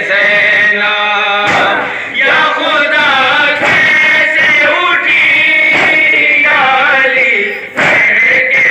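Men chanting a noha, a Shia Urdu lament, in chorus, the sung lines held and bending in pitch, with a few sharp beats among them.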